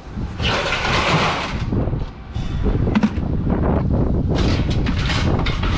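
A vehicle engine running with a steady low rumble. Over it come irregular bursts of rushing noise and a few short knocks around the middle.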